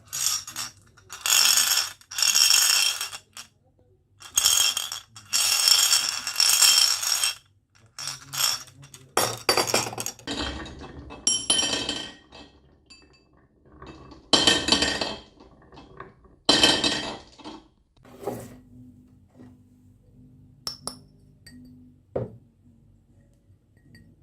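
Marbles rolling and clattering down marble-run tracks, in repeated runs of one to two seconds, with scattered clinks and clicks between them.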